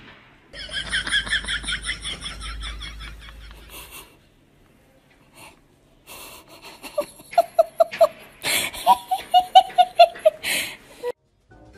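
Human laughter in quick rhythmic bursts: a high-pitched run of giggles first, then after a pause two more runs of rapid 'ha-ha-ha' laughing.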